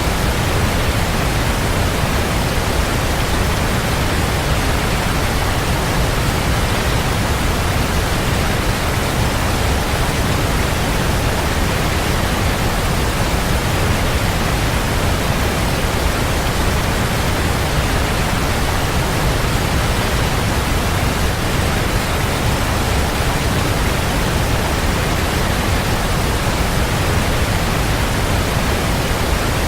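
Waterfall: a steady, unbroken rush of falling water, heaviest in the low end.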